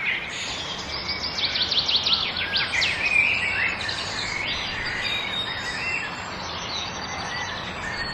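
Several wild birds singing and chirping over a steady natural background hiss, with a quick run of rapidly repeated rising chirps in the first few seconds.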